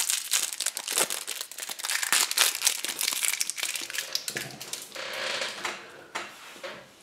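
Thin clear plastic wrapper around a Kinder Surprise toy crinkling as it is handled and torn open: a dense run of sharp crackles for about four seconds, then quieter handling that fades out.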